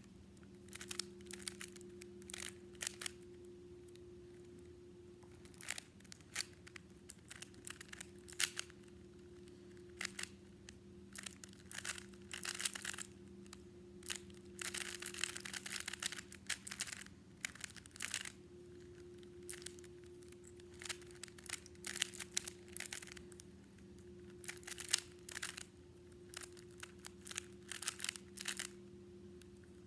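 A plastic Rubik's cube being turned fast by hand in a speedsolve: bursts of rapid clicking and rattling as the layers snap round, with short pauses between the bursts.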